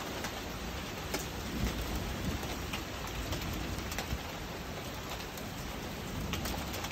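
Steady rain falling during a thunderstorm, with scattered sharp drips close by, and a low rumble of thunder swelling briefly about a second and a half in.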